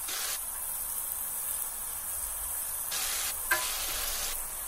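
Sliced onions and curry leaves sizzling in hot oil in a stainless steel pot while being stirred with a wooden spatula, the hiss swelling and easing as they are turned. There is a single light knock about three and a half seconds in.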